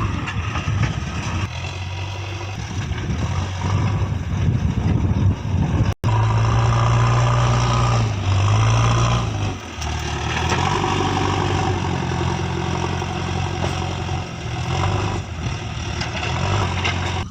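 Diesel engine of a JCB 3DX backhoe loader running, its note rising and falling as load changes, with a momentary cut-out about six seconds in.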